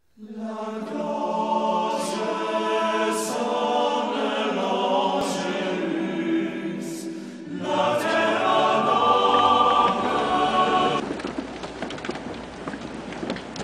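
A choir singing a slow sacred choral piece in long held notes. About eleven seconds in the singing cuts off abruptly, leaving a rough, unpitched background noise.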